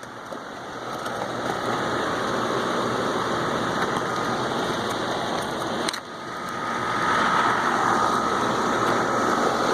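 Newly installed York rooftop package air-conditioning unit running: a steady rush of air from its condenser fan with a faint steady whine, rejecting heat as it cools. It briefly drops near six seconds in and is louder from about seven seconds.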